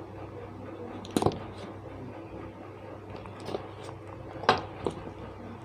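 Handling and opening a phone's retail box: a few knocks and clicks as the box and its contents are moved, the loudest about a second in and about four and a half seconds in.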